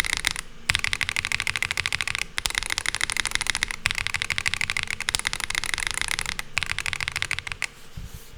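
Fast typing on a Monsgeek M1 V5 TMR keyboard with stock Geonworks Raw HE magnetic switches: a clacky, high-pitched plastic clack as each switch bottoms out. The keystrokes come in quick, dense runs broken by a few short pauses, and they thin out near the end.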